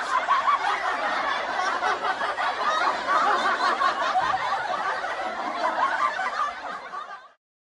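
Laughter from a group of people: a dense, steady mass of overlapping laughs, played as a meme sound effect. It cuts off abruptly near the end.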